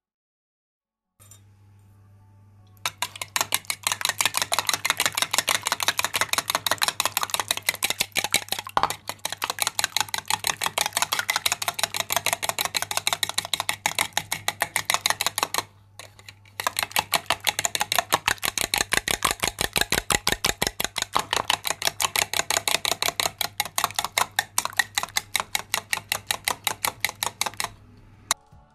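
A spoon beating eggs briskly in a glass bowl: rapid, regular clicks of metal against glass. It stops for about a second a little past halfway, then carries on until near the end.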